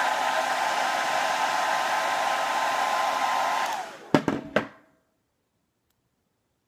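Handheld blow dryer running, a loud steady rush of air with a whine, heating a nail wrap. It is switched off a little under four seconds in, its whine falling away, followed by a few knocks as it is handled and then near silence.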